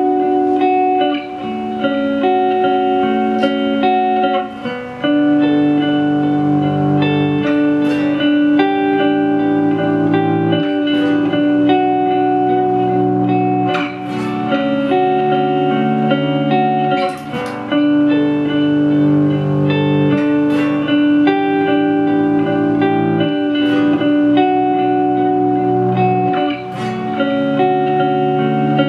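Ambient looped electric guitar: a Gibson Les Paul Junior through compressor, distortion and fuzz-phase pedals, layered with a Line 6 DL4 looper and played through a small Marshall amp with its spring reverb turned all the way up. Held, overlapping notes, with lower notes from a looped bass underneath.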